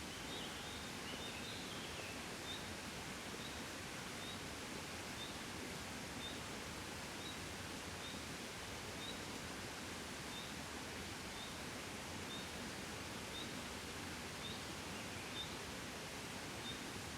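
Soft breeze blowing steadily, an even rushing hiss, with a short high chirp repeating about once a second and a few brief twittering notes near the start.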